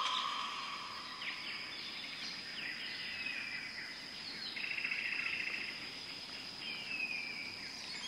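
Chorus of bird calls, short chirps and downward-sliding whistles, over a steady high insect drone, with a buzzy rattling call about halfway through.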